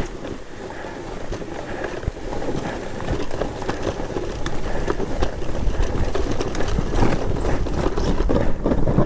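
Snowracer steering sled's skis running through powder snow, a steady rushing noise that grows louder as the sled picks up speed, with scattered knocks and scrapes.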